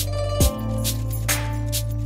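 Lo-fi background music: a slow beat with a deep kick drum about half a second in and lighter drum hits, over a held bass note and sustained chords.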